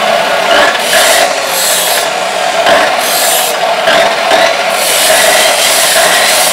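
Maktec abrasive cut-off saw running with a steady motor whine, its disc grinding into a small piece of metal in several short bites, each a harsh hiss, the last and longest near the end.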